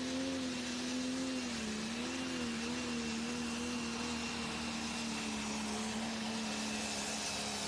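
Pro Stock pulling tractor's diesel engine running at a steady speed, its pitch sagging briefly about two seconds in, with a faint high whine over it.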